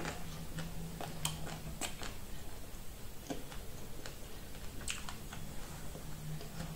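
Mouth sounds of eating corn on the cob: biting into the kernels, then chewing with irregular small clicks and crunches.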